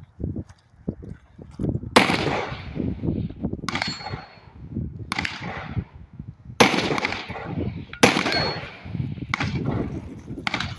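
Handgun shots fired one at a time, seven in all, spaced about one and a half seconds apart, each a sharp crack with a short fading tail.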